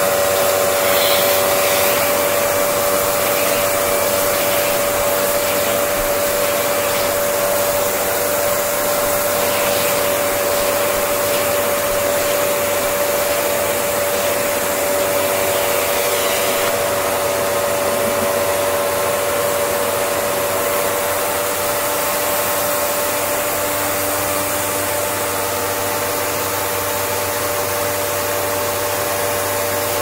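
A 2007 Hoover WindTunnel Twin Chamber bagless upright vacuum (U5760-920) runs steadily on its Maytag-built motor: a constant, even-pitched motor whine over rushing air.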